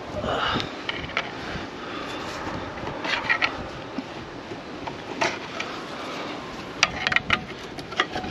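A steel pry bar clanking and scraping against the cast-iron bell housing as it is levered off the engine's alignment dowels. There are several sharp knocks about three seconds in and a cluster near the end, over a steady rush of wind on the microphone.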